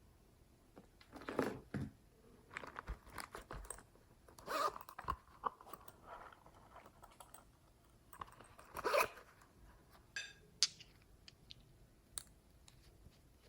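Slime being squeezed and kneaded by hand, giving short squishes and pops at uneven intervals. The loudest come about a second and a half in and again around nine seconds.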